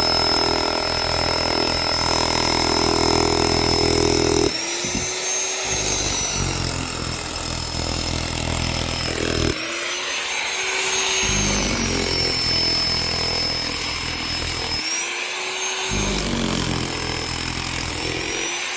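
Handheld electric power tool cutting into material, its motor whine dropping under load; three times the load comes off briefly and the whine climbs as it spins free, then it bites in again. It stops right at the end.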